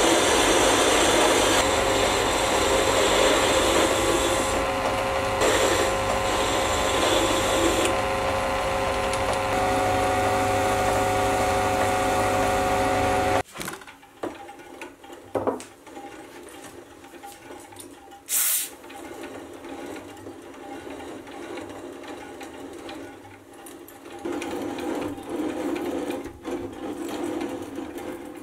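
Sieg C3 mini lathe running, its carbide insert turning down a steel tool post stud, with a steady motor whine over the cutting noise. About halfway the sound drops abruptly to a much quieter, uneven running with a few light clicks and one brief burst of noise, then grows louder and rougher again near the end as the lathe works the stud's threaded end.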